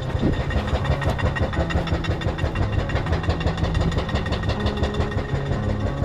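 A vehicle engine running at low revs: a steady, fast, even low chug.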